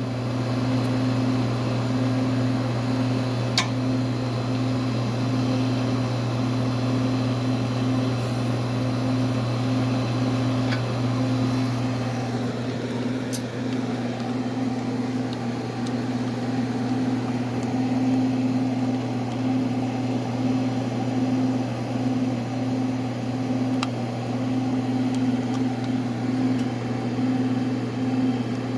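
Air-conditioning condensing unit running: steady compressor hum with the condenser fan, and a couple of faint clicks.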